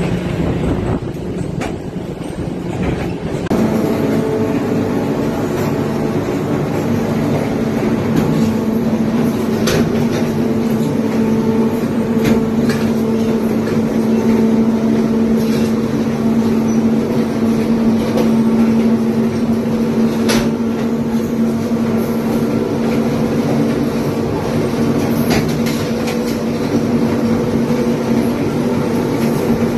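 A moving train's running noise, then about three and a half seconds in, the steady drone of a TGM6 diesel-hydraulic locomotive's engine, heard close up from the coupled coach behind it as the train runs. A few sharp knocks come from the running gear now and then.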